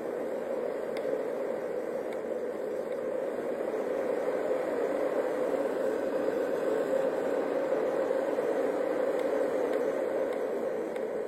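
Fan-based white noise machine running, a steady rushing noise that grows louder over the first few seconds and eases off slightly near the end as its speed and volume setting is changed.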